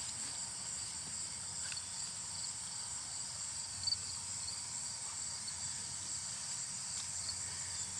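Steady high-pitched trilling of a chorus of crickets and other insects, with one brief soft knock about four seconds in.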